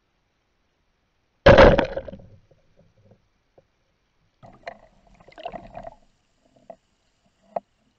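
Rubber-band speargun firing underwater: one sharp, loud crack about a second and a half in that rings away over about a second as the shaft is released. Afterwards come quieter rattles and scrapes from handling the gun and line, and a single sharp click near the end.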